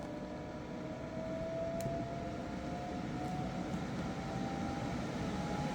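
EcoFlow Wave portable air conditioner starting up, its blower running steadily with a faint whine that rises slowly in pitch as it spins up. The sound grows a little louder over the few seconds.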